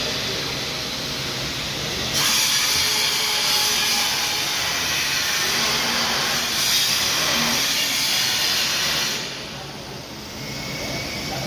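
Stick (arc) welding: the electrode arc crackling and hissing steadily as a bead is laid, striking about two seconds in and breaking off about nine seconds in.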